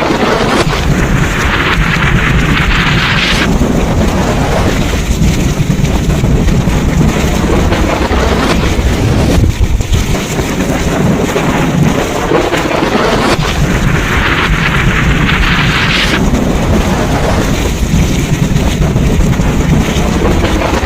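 Thunderstorm: heavy rain with a constant deep rumble of thunder. A brighter hissing surge of rain or wind swells and stops abruptly twice, about a second in and again about two-thirds of the way through.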